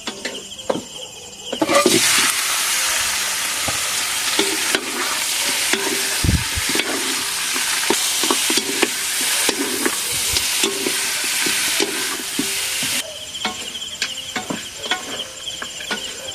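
Chicken adobo (adobong manok) sizzling loudly in a hot pan, with scattered knocks and scrapes of stirring. The sizzle starts suddenly about two seconds in and stops suddenly near the end. Crickets chirp steadily before and after it.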